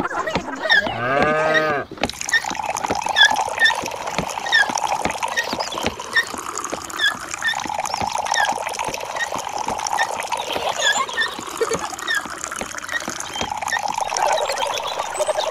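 A cow moos once, for about a second and a half, near the start. Then water pours and trickles steadily, with short high chirps dotted over it.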